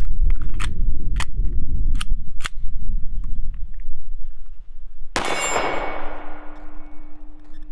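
Hi-Point C9 9mm pistol firing a single shot about five seconds in, a sudden sharp crack with a ringing decay. A few short sharp clicks come before it.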